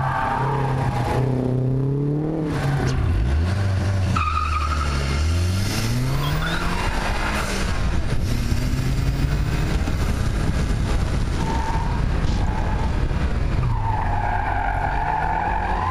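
Car engine at an autocross run: held at steady revs, then revving up hard as the car launches about three seconds in, its pitch rising and falling with throttle and gear changes. Tyres squeal at several points, longest near the end.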